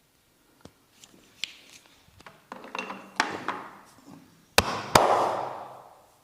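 Hand taps and slaps of a massage on the body, growing louder, then two sharp slaps close together near the end.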